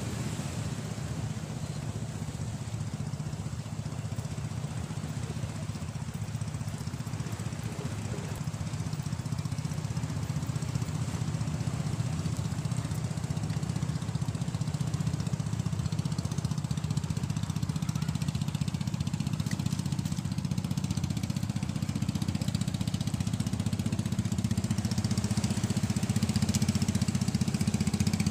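Engine of a small wooden fishing boat running steadily with a low drone, growing gradually louder as the boat comes closer.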